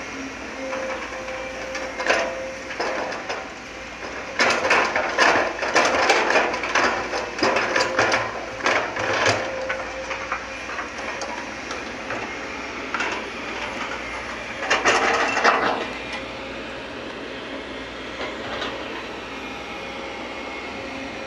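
Sumitomo excavator running steadily while its bucket dumps soil and rocks into a dump truck's bed. The load lands as a dense clattering rumble lasting about five seconds, starting some four seconds in, with a shorter spill of clatter about fifteen seconds in.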